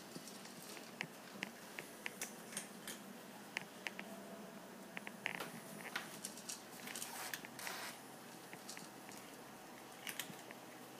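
Cat eating from a bowl: small irregular crunches and clicks of chewing, several a second, coming thicker in the middle.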